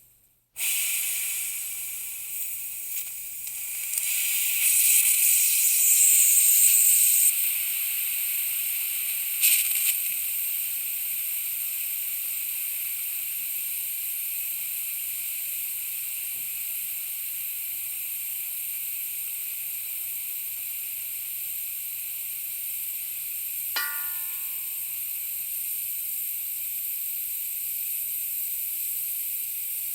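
Air hissing out of a leak in a steady high hiss. It cuts out for a moment at the start, comes back, swells louder for a few seconds, then settles to an even level. A short squeak comes about three-quarters of the way through.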